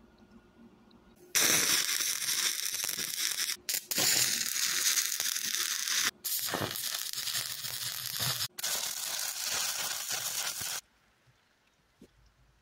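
Electric arc welder crackling as a steel pipe is welded onto the side of an old LPG-bottle furnace body. The arc strikes about a second and a half in, runs with a steady crackle and spatter, and breaks off three times for a moment before stopping near the end.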